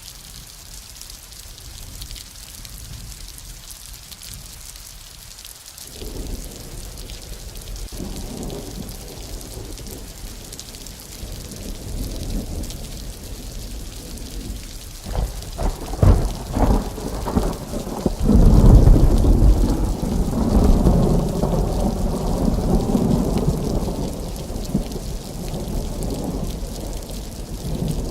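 Thunderstorm: steady rain hiss throughout, with thunder that starts as a low rumble about six seconds in, breaks into a series of sharp cracks a little past the middle, then swells into a loud, long rolling peal that slowly dies away.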